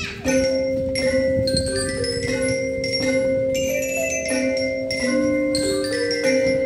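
A children's drum band playing a tune: struck, ringing bell-lyre (glockenspiel) notes over long held melody notes that step in pitch every second or so.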